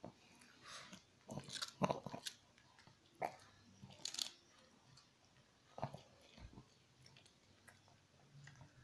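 A shih tzu biting and crunching a cracker, with irregular crunches that are loudest in the first half.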